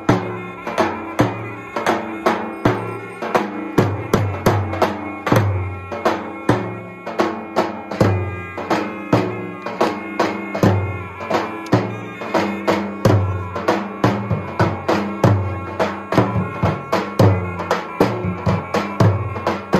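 Lodra, the large double-headed Albanian folk drum, played by two drummers in a steady dance rhythm. Deep beater strokes fall about every second and a bit, with lighter stick taps between them, over a steady pitched drone.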